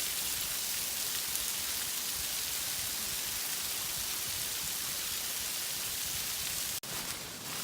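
Steady hiss of falling, splashing water. Near the end it cuts off suddenly and gives way to a quieter, uneven rustling.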